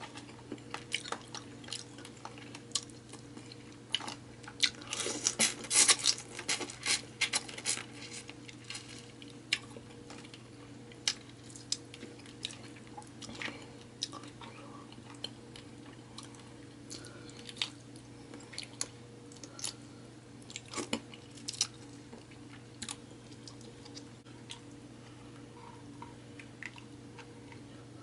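Close-miked eating of seafood boil: chewing and mouth sounds with a scatter of sharp clicks and crunches, busiest about five to eight seconds in, over a steady low hum.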